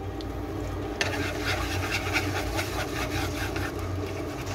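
Beaten egg sizzling in a nonstick frying pan, a dense crackle that starts up about a second in and carries on steadily over a low hum.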